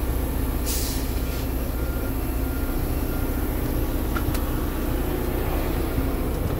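Semi-truck diesel engine running steadily, heard from inside the cab as a low hum. A short hiss comes about a second in, and a faint click later.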